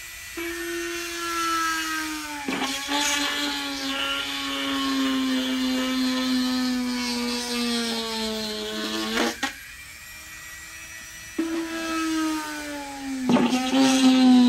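High-speed rotary tool cutting a hole in the console: a steady whine whose pitch sinks slowly as the bit bites in. It stops about nine seconds in and starts again a couple of seconds later, with a few sharp scrapes as the bit catches the work.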